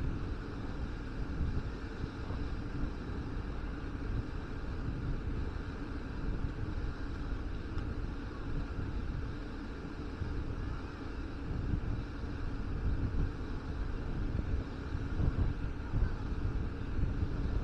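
Wind buffeting the microphone in uneven gusts over a steady outdoor background hiss.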